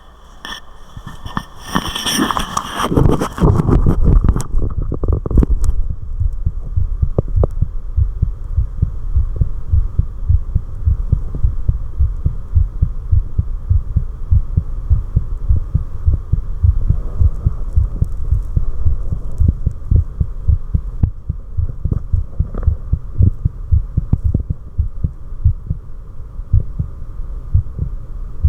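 A human heartbeat recorded close up: a steady rhythm of low, dull thumps. The first few seconds are covered by scraping noise before the beats come through clearly.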